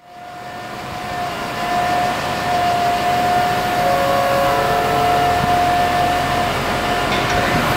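Train pulling slowly into a station platform: a steady high whine over the rumble of the wheels, growing louder over the first couple of seconds as it approaches.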